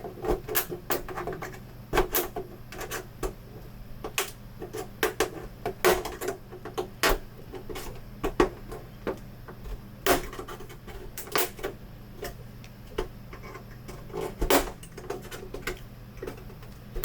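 Plastic clips of a Samsung U32J590UQU monitor's casing snapping loose as the cover is pried apart with prying tools: an irregular run of sharp clicks and cracks, some much louder than others.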